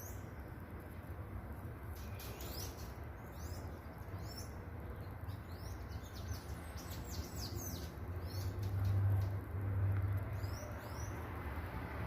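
Songbirds chirping: many short, high, quick calls, thickest in the middle stretch and sparser toward the end. A steady low rumble runs underneath and swells briefly about two thirds of the way through.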